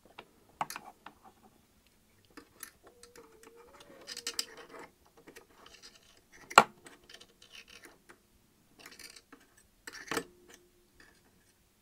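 Small irregular clicks and scratches of an awl and a cotton bud picking at a stuck lump of lint inside the metal hook race of a Bernina 1008 sewing machine, with one sharper click about six and a half seconds in.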